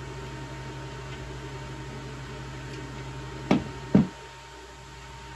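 Two sharp knocks about half a second apart as the gaming chair's metal seat tilt mechanism is set down on the underside of the seat.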